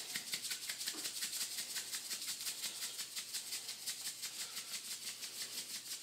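Hand-twisted salt mill grinding coarse sea salt: a quick, even run of dry grinding clicks, about seven a second.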